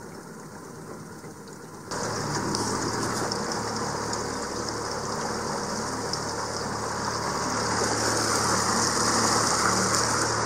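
Small outboard motor running steadily, pushing an aluminum jon boat along the river. The sound gets suddenly louder about two seconds in.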